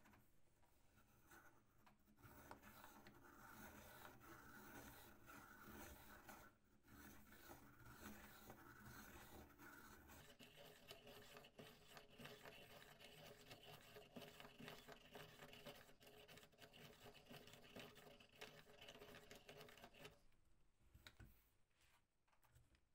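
1970s Soviet hand-cranked pencil sharpener shaving a pencil as its crank is turned, a steady scraping grind of the cutter on wood and graphite. It starts about two seconds in, breaks off briefly around six seconds, and stops a few seconds before the end.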